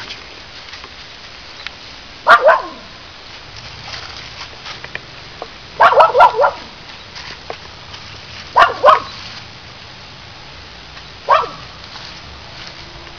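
Cockapoo puppy barking territorially in short bursts: a pair of barks, then a quick run of three or four, another pair, and a single bark near the end.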